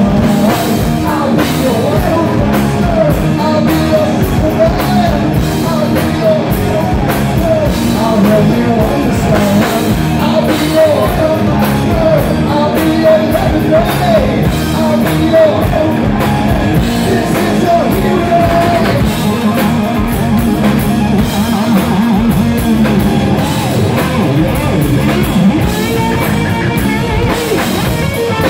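Live hard rock band playing: electric guitars, bass guitar and drum kit, with a sung lead vocal over them for much of the stretch.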